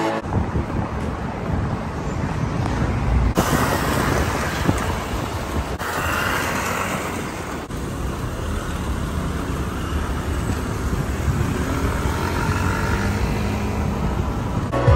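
City street ambience with road traffic running by, a continuous rumble of engines and tyres that changes abruptly a few times.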